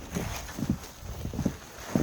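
Footsteps crunching in deep snow, about two soft thuds a second.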